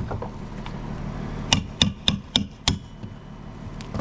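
Hammer blows: a quick run of five sharp strikes, each with a short ring, about a second and a half in.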